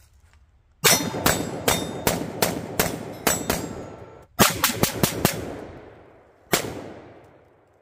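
Budget polymer AR-15 rifle firing semi-automatic shots of steel-case ammunition: a quick string of about eight, a brief pause, about five faster, then a single last shot whose report trails off. The rifle cycles each round and the last shot empties the magazine, locking the bolt back.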